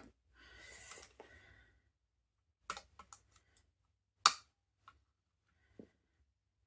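Air rifle action parts being handled during a strip-down: a short scrape or slide, then a run of small clicks and knocks, with one sharp knock about four seconds in.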